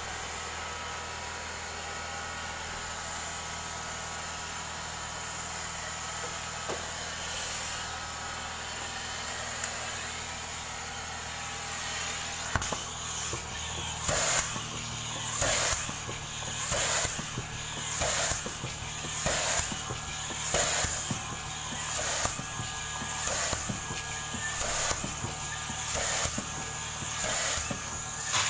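Upholstery-cleaning machine running steadily, its suction drawn through a hose and a hand upholstery tool. From about twelve seconds in, the tool is pulled across the fabric sofa cushion in regular strokes, each a short surge of suction hiss, about three every four seconds.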